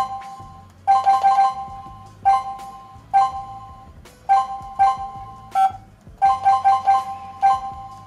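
Touch-keypad beeps from a CS108 WiFi/GSM home alarm panel as its keys are pressed to scroll through the menu: short, loud electronic beeps, some single and some in quick runs of three or four.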